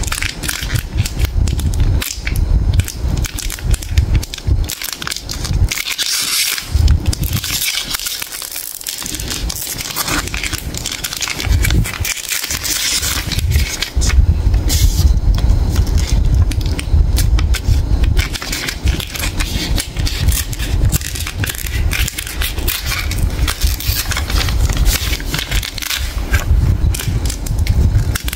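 Hands unwrapping a Cadbury Dairy Milk Silk Bubbly chocolate bar: the wrapper tears and the gold foil crinkles as it is peeled back. It makes a close, continuous run of crackles and rustles.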